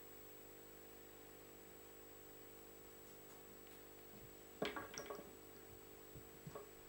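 Near silence with a steady low hum, broken by a brief cluster of small clicks and rustles from hands handling materials and tools at a fly-tying vise, about two-thirds of the way through, and a couple of fainter ones near the end.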